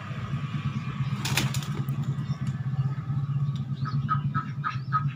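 A fighting rooster flaps its wings and strikes at a hanging target in a brief burst about a second and a half in. From about four seconds on, poultry give short squawking calls several times a second, over a steady low hum.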